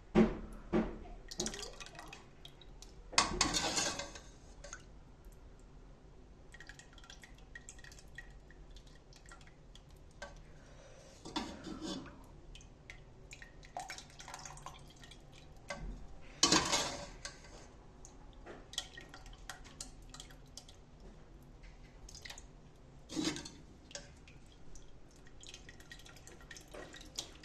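Kitchen work sounds: scattered clinks and knocks of dishes and utensils with a little water, and a handful of louder clatters spread through.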